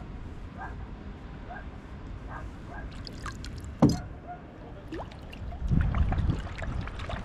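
A pike splashing at the water's surface beside a kayak as it is handled by hand, with a sharp slap just before four seconds in and heavier splashing about six seconds in.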